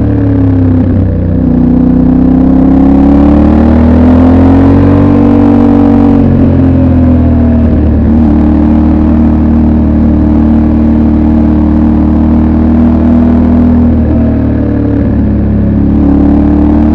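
Yamaha Ténéré 700 World Raid's 689 cc parallel-twin engine with its stock exhaust, heard on board while riding. The engine speed dips about a second in, climbs until about five seconds in, and falls again. It then holds steady for several seconds, dips once more near the end and picks up again.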